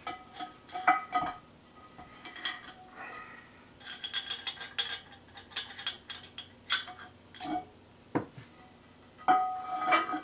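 Iron weight plates knocking and clinking against each other and the metal loading pin of a grip-training machine. A string of sharp metal clanks, each with a short ring, and a quick flurry of them in the middle.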